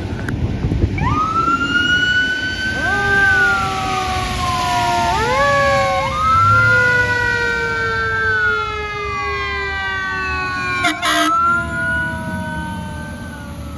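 Fire department squad truck's siren wailing, several tones sweeping up and gliding slowly down over and over, with a brief horn honk about eleven seconds in. The siren fades near the end.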